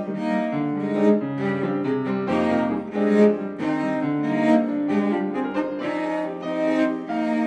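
Cello and piano playing a tango. The bowed cello is loudest, with piano accompaniment underneath and notes changing briskly with sharp accents.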